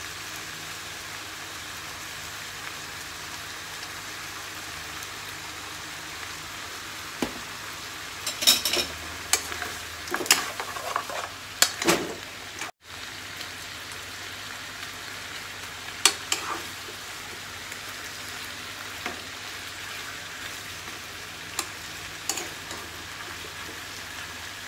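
Pork spareribs sizzling steadily in a nonstick frying pan, with a metal utensil scraping and clinking against the pan as they are stirred, most busily from about a third of the way in to just past halfway, with a few more knocks later. The sizzle cuts out for a split second just past halfway.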